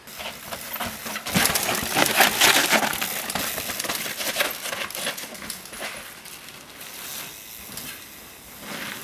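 Mountain bike riding down a steep dirt and root trail: tyres crunching over the ground with quick rattling clicks from the bike. It is loudest a second or two in and fades as the bike moves off.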